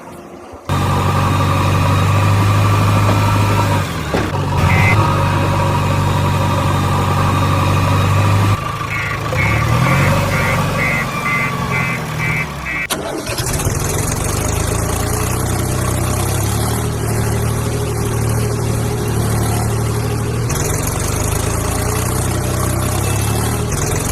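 Vehicle engines running steadily across several spliced clips, with abrupt changes where the clips join. In the middle, a string of short beeps comes about twice a second for a few seconds.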